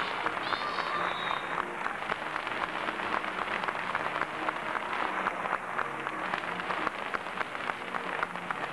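Theatre audience clapping, a dense, steady patter of many hands, with a short high-pitched cry from the crowd in the first second or so.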